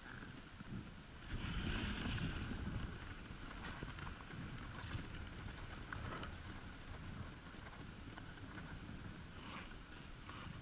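Dog sled runners sliding over packed snow, a steady rushing, rumbling noise with wind on the microphone. A louder rush starts a little over a second in and lasts about a second and a half.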